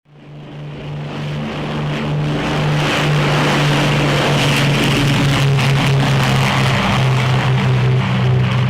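A steady, low engine drone with a rushing noise over it, fading in over the first couple of seconds and then holding steady.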